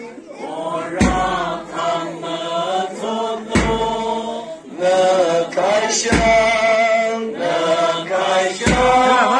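A group of voices singing a chant-like song together, with a deep beat about every two and a half seconds.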